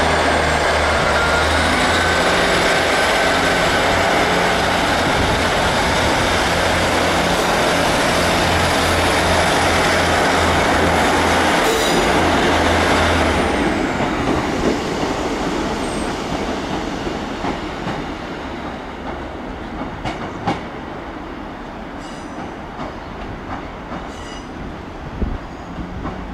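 Two coupled Class 156 Super Sprinter diesel multiple units pulling away under power, underfloor diesel engines running with a thin high whine over them. After about 13 seconds the sound fades as the train draws off, leaving a few sharp wheel clicks over the pointwork.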